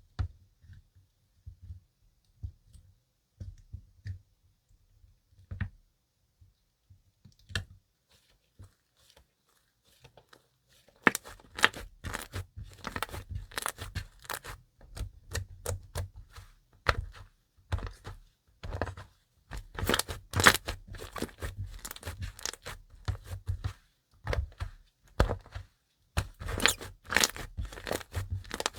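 Slime being worked by hand: a few soft low pops and squelches at first, then from about eleven seconds dense crackling and popping.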